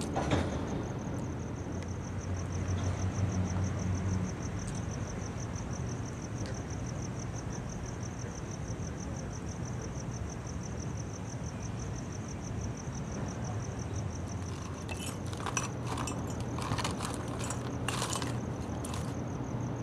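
Steady low rumble, swelling briefly a few seconds in, under a thin high tone that pulses evenly throughout. Near the end, a run of short scrapes and clicks as a small hand brush sweeps into a plastic dustpan.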